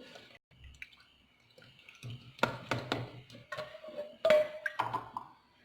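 Mussels' cooking water dripping and splashing as it is drained from a colander, with a string of separate drips and light clinks over the second half.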